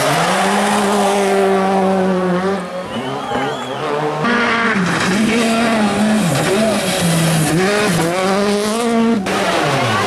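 Rally cars' turbocharged four-cylinder engines at high revs, cut together from several clips. First an engine held steady near the limiter with tyres squealing as a car spins; then engines revving up and dropping back again and again through gear changes and lifts.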